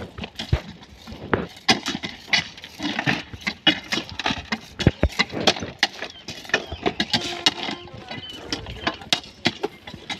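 Track ballast stones clattering and clinking in irregular, sharp strikes as an iron crowbar digs and pries the stone around the sleepers during manual ballast cleaning.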